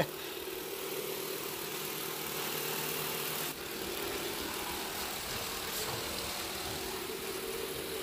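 Robot vacuum running: a steady motor hum with a fan hiss, dipping briefly about three and a half seconds in.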